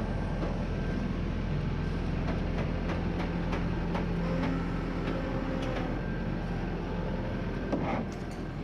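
Steady low rumble with a faint hum, broken by scattered light clicks and a short clatter near the end.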